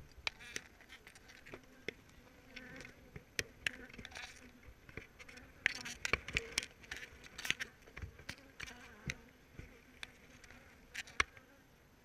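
Honey bees buzzing around an open hive, a faint steady low hum, broken by frequent sharp clicks and taps.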